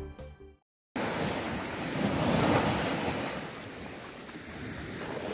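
Surf washing on the shore with wind buffeting the microphone, a steady rushing noise that swells around the middle. Background music fades out at the very start, followed by a moment of silence before the surf comes in.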